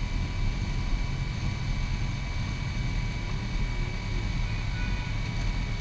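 Motorcycle engines idling in a steady low rumble, picked up by a camera mounted on one of the bikes.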